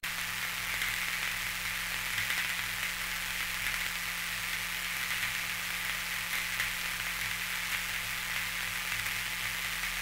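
Steady static-like hiss, strongest in the upper middle range, with a faint crackle running through it and a low hum beneath. It cuts in abruptly, louder than the noise before it.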